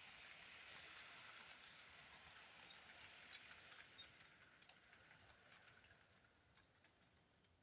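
Near silence: a faint hiss with scattered light clicks, fading out near the end.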